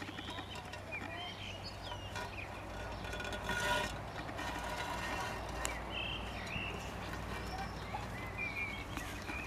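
Small birds chirping in short, repeated calls over a steady low rumble of outdoor background. A brief rustling scrape comes about three and a half seconds in.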